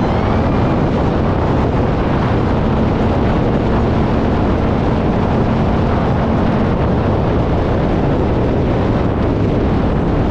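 Yamaha MT-07 parallel-twin engine running at a steady pitch at speed, mixed with heavy wind rush on the microphone.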